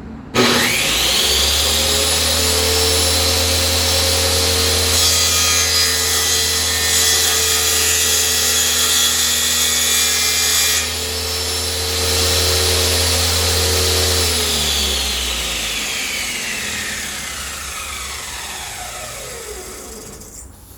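Power saw starting up, running steadily, and cutting through a wooden puzzle-board blank for about six seconds. It is then switched off, and its whine falls steadily in pitch as the blade spins down.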